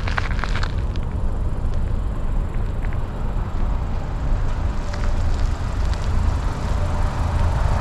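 Car travelling along a highway: a steady low rumble of engine and road with an even tyre hiss, and a few light clicks about half a second in.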